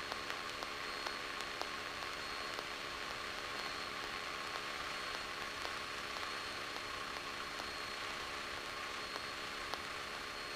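Steady faint hiss with a thin high whine: the noise floor of an audio feed from the cockpit intercom while its squelch is closed between words, so the engine is not heard.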